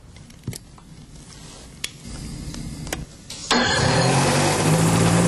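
Engine of a Sky Cycle roadable gyroplane being started. A few sharp clicks and a quieter whir come first, then about three and a half seconds in the engine catches and runs loud and steady.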